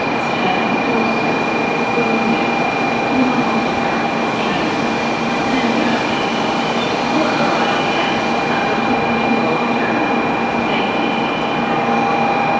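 Shinkansen platform ambience under the station roof: a steady din with the murmur of waiting passengers and a steady high-pitched tone. A lower tone grows stronger in the second half as the train approaches.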